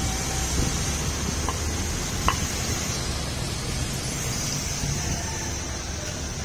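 Steady street traffic noise, a low rumble under an even hiss, with one short sharp click about two seconds in.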